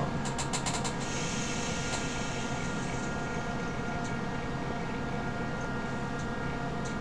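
Steady electrical hum made up of several fixed tones, with a few light clicks in the first second and a soft hiss between about one and three seconds in.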